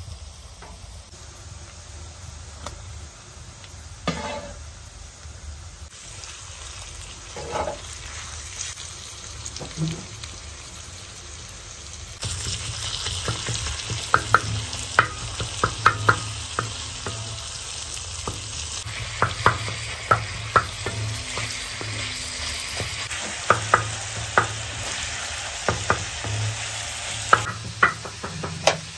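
Diced onions sizzling on a flat iron griddle, with a wooden spatula knocking on it now and then. About twelve seconds in, minced meat goes onto the hot iron and the sizzle gets much louder, while the spatula scrapes and taps the griddle many times as it is stirred in.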